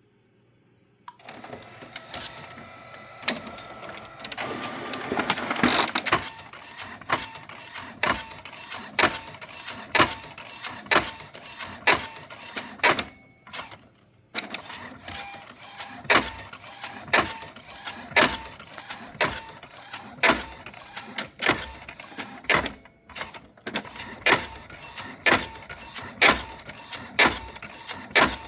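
Epson L15160 ink-tank printer printing: it starts up about a second in, then a sharp knock comes roughly once a second over a steady mechanical running sound, with two brief pauses. The owner takes the abnormal noise for gears not meshing tightly and rubbing, which causes misaligned printing.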